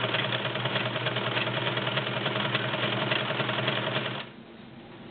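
Brother Model 2010 sewing machine running steadily, sewing a stretch stitch that works the fabric forward and back: a steady motor hum with fast ticking. It stops about four seconds in.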